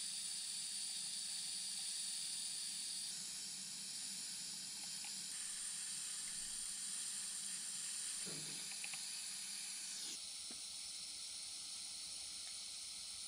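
Faint steady hiss of background noise, mostly high in pitch, with no distinct work sounds. Its tone shifts abruptly a few times, about 3, 5, 8 and 10 seconds in.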